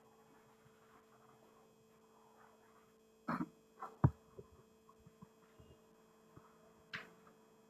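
Steady low electrical hum from the recording setup, with a few short clicks about three seconds in, just after four seconds and near seven seconds.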